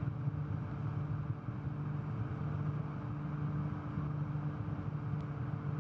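Steady low hum with two fainter steady tones above it over an even rushing noise; it holds the same level throughout.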